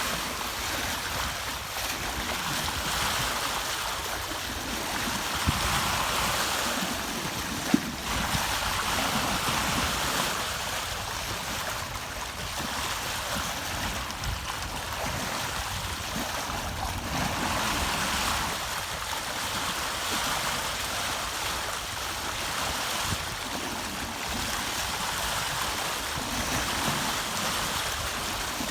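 Water rushing and splashing along a sailboat's hull under sail, swelling and easing every few seconds. Two brief sharp knocks stand out in the first eight seconds.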